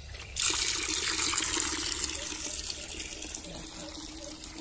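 Water poured out onto a concrete floor, a splashing rush that starts suddenly about half a second in and slowly tails off.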